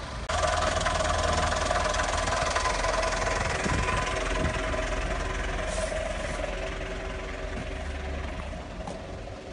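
Fire truck engine running steadily at close range, with a steady whine over it. It gets much louder suddenly about a third of a second in and eases off slightly toward the end.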